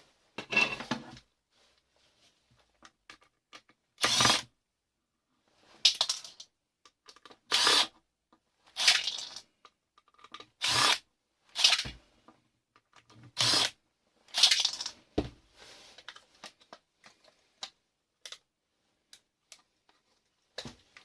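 An alarm system control box being broken apart by hand with tools: about ten short, sharp snaps and scrapes spaced irregularly, with small clicks between them.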